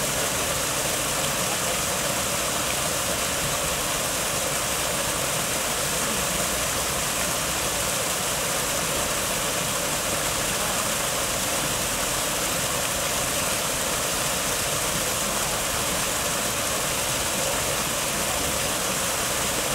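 Small cascade of water pouring steadily over rocks into a pond, an even rushing and splashing.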